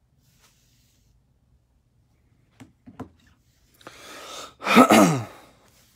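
A person sneezing once, loudly. Two short catches of breath and a sharp intake of breath lead up to it, and the sneeze itself comes about five seconds in, with a falling voice.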